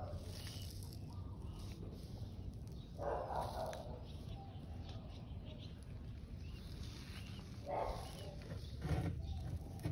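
Three short animal calls a few seconds apart over a low steady background rumble; the last, near the end, is the loudest.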